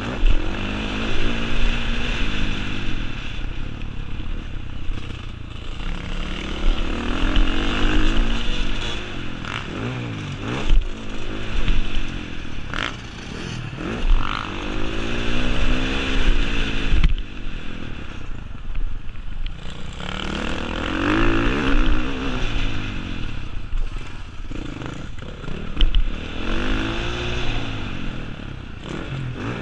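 Off-road motorcycle heard from on the bike, ridden hard on a dirt track: the engine's revs climb and drop again and again as the rider accelerates and shifts, easing off for a couple of seconds about two-thirds of the way through. Wind noise and a few sharp knocks and rattles come from the bike over the bumps.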